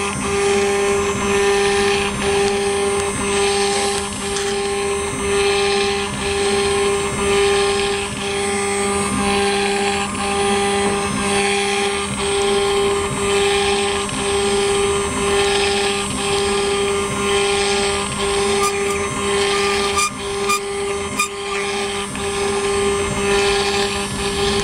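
CNC engraving machine spindle cutting a design into a metal plate with a pointed engraving bit: a steady mechanical whine that swells and dips in an even beat, about four pulses every three seconds, with a few faint clicks near the end.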